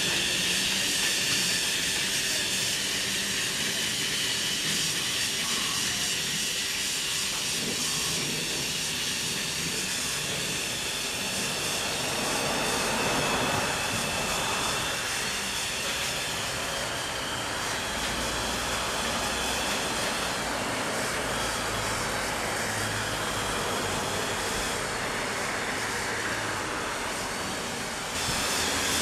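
Battery-powered Tomy TrackMaster toy locomotive running on plastic track: a steady electric motor whir with the wheels rattling on the track, fuller around the middle as it passes close by.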